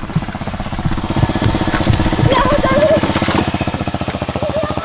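Motorcycle engine idling with a rapid, even pulse. A person's voice is heard briefly about halfway through.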